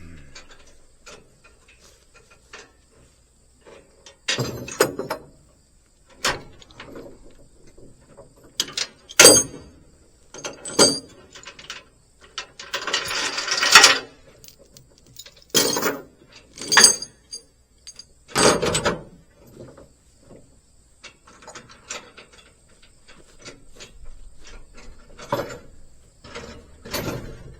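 Tie-down chains and lever binders being released and pulled off a trailer load: irregular sharp metal clanks and rattles, with a longer rattle of chain about halfway through.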